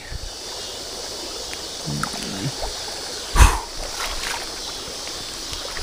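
A largemouth bass being let go into shallow ditch water, with one short splash a little past halfway, over a steady background hiss.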